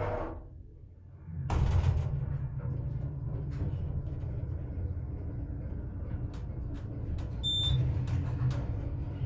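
Elevator in operation: a steady low motor hum sets in about a second and a half in, with scattered clicks and a short high beep near the end.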